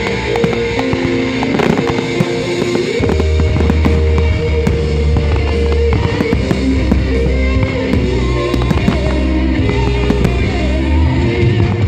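Fireworks going off in many sharp bangs and crackles over loud music; a heavy bass line comes in about three seconds in.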